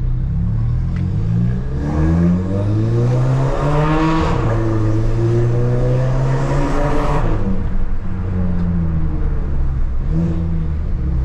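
Stage 2 tuned Volkswagen Jetta 2.0 TSI turbocharged four-cylinder accelerating hard, its engine and exhaust note climbing in pitch for about five seconds before the throttle comes off and it drops back to a lower steady drone.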